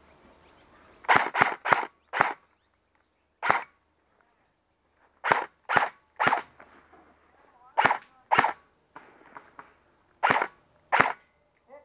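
Airsoft rifle firing about a dozen sharp single shots, irregularly spaced: a quick run of four about a second in, then a lone shot, a group of three, and two pairs.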